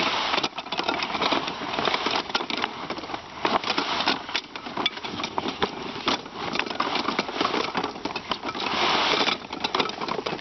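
Heavy polyethylene ground cover crinkling and rustling as it is spread out and tucked in by hand, with many irregular crackles.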